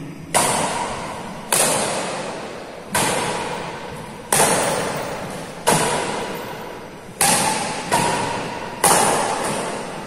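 Badminton rackets striking the shuttlecock back and forth in a rally: seven sharp hits about one and a half seconds apart, each echoing and dying away in a large hall.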